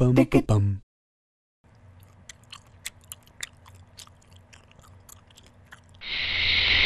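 A short sung jingle cuts off in the first second. Then comes a gum-chewing sound effect, soft wet clicks and smacks over a faint low hum. About six seconds in, a loud steady hiss starts and carries on.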